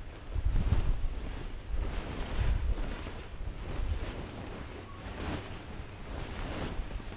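Heavy fabric car cover being dragged off a snow-covered tractor: a string of rustling, swishing surges as the cloth is pulled and snow slides off it, loudest in the first few seconds, over a low rumble.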